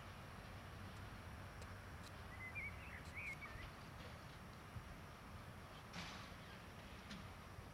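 Faint, steady low rumble of a distant SM42 diesel shunting locomotive hauling a works train away. A bird chirps briefly about two and a half seconds in, and a few light clicks are heard.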